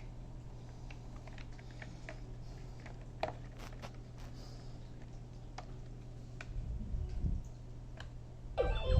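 Scattered light plastic clicks and handling knocks on a Fisher-Price Code 'N Learn Kinderbot toy robot over a steady low hum. Near the end the toy's speaker starts a quick run of stepped electronic beeps.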